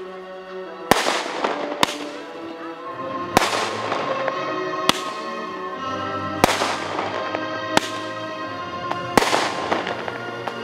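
Fireworks shells bursting: about seven sharp bangs, roughly one every one and a half seconds, each followed by a fading crackle. Background music with held notes plays underneath.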